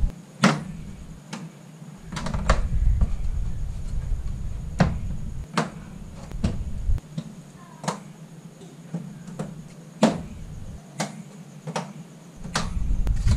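Sharp plastic clicks and knocks, about a dozen at uneven spacing, as a Mitsubishi Mirage's front bumper and its fasteners are pushed and snapped back into place. A low rumble comes and goes between them.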